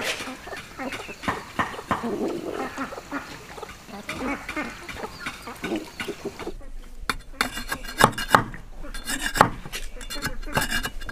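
Chickens clucking and calling in a farmyard. About six and a half seconds in, this gives way to a large knife chopping a wooden stick on a wooden block: sharp knocks about twice a second.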